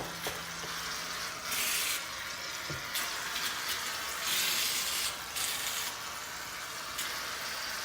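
Aerosol shaving cream can hissing in several spurts, each about half a second to a second and a half long, as foam is sprayed out.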